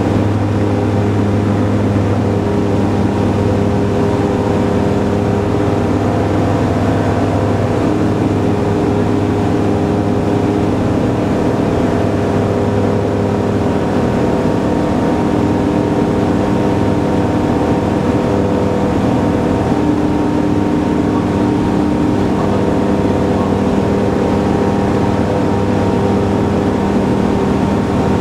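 Kitfox light aircraft's engine and propeller droning steadily in cruise, heard from inside the cockpit. The tone shifts slightly about halfway through.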